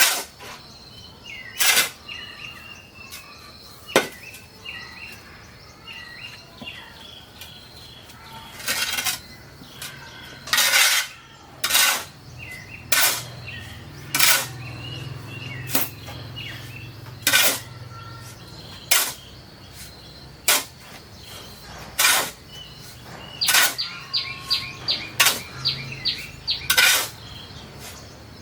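A series of sharp, short knocks or scraping strokes, one every second or two with uneven spacing, from manual work. Birds chirp throughout, with a steady high insect drone behind.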